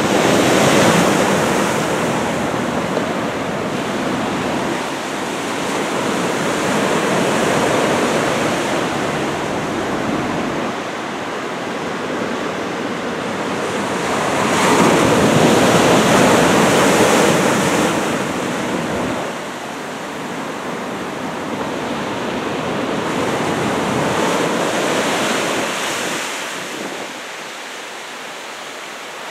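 Heavy surf from a typhoon swell: waves breaking and washing up the shore in a continuous rushing roar that swells louder roughly every eight seconds, with wind buffeting the microphone.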